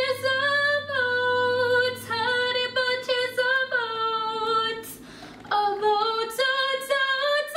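A woman's voice singing a slow melody of long held notes that step up and down in pitch, over a low steady drone, with a brief pause about five seconds in.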